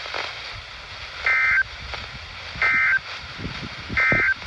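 A NOAA Weather Radio receiver sounds three short bursts of warbling SAME data tones, one about every second and a third. They are the end-of-message code that closes the special marine warning.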